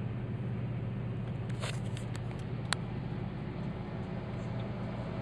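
Steady low rumble of a car's engine and tyres on the road, heard inside the moving car's cabin. A few light clicks come in the middle, the sharpest about two and a half seconds in.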